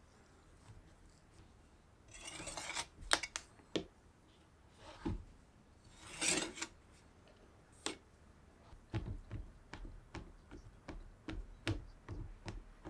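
Baking prep work with kitchen utensils: two short scraping, rustling strokes, then a run of light taps and clicks.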